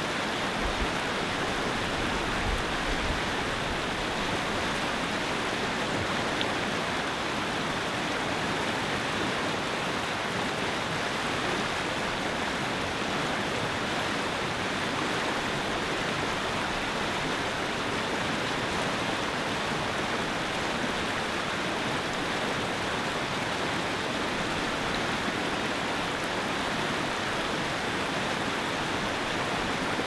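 River rapids rushing steadily over rocks: a constant, even wash of whitewater.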